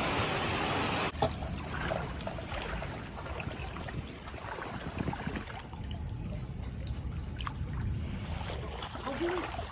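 Floodwater trickling and sloshing, with small scattered splashes. A loud, steady rushing noise fills the first second and cuts off abruptly.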